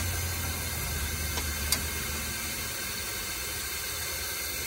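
Steady hiss of compressed air leaking from the exhaust port of an air valve on a 1989 Crown Super Coach bus's air system, over a low hum that weakens over the first two seconds, with two faint clicks in the middle. The leak comes from the valve fed by the line to the engine shutoff solenoid, a fault the mechanic could not trace.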